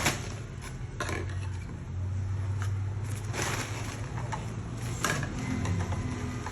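A few scattered knocks and scrapes, as of objects being handled, over a steady low hum.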